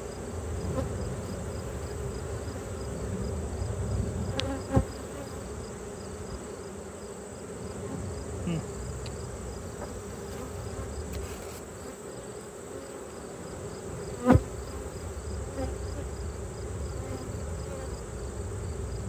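Honey bees buzzing around an open hive, a steady hum. Two sharp knocks stand out over it, one about five seconds in and one about fourteen seconds in.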